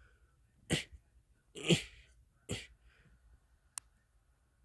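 Three short, breathy, sneeze-like bursts about a second apart, then a single sharp click near the end.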